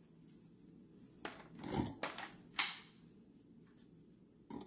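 Handling knocks and a sharp click about two and a half seconds in, as an 18V Ridgid Octane battery pack is slid onto a Ridgid cordless angle grinder and latches in place, with another small knock near the end.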